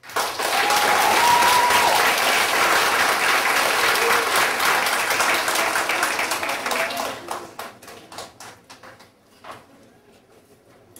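Audience of schoolchildren clapping and cheering at the end of a piano piece: the applause breaks out suddenly, holds for about seven seconds, then thins into scattered claps and dies away.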